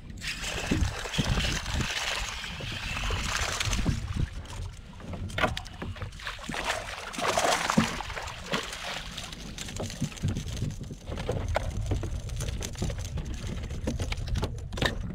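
Water splashing and sloshing at the side of a kayak as a hooked fish thrashes at the surface, strongest in a few spells, over a steady low wind rumble on the microphone.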